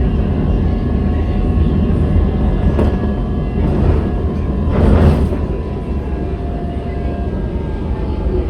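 CSR Zhuzhou light rail vehicle running, heard from inside the car: a steady low rumble with faint steady tones above it, and a brief louder rush about five seconds in.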